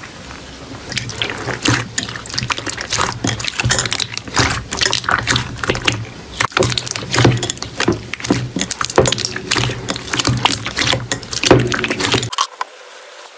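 Slime being squished and worked, making a dense run of irregular wet clicks and pops. The sound drops off suddenly about a second before the end.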